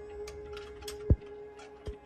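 Background music: a held tone over quick ticking clicks, with two deep bass drum hits that drop in pitch, about a second in and near the end.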